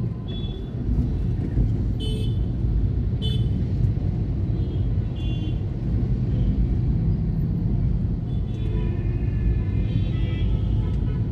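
City road traffic: a steady low rumble of vehicles with several short horn toots, and a longer spell of horn sounding near the end.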